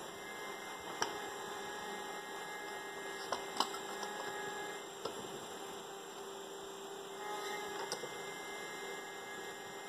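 A handful of sharp clicks and knocks as parts of a 3D-printed revolver-type launcher are handled and fitted together, the loudest about three and a half seconds in, over a steady hum.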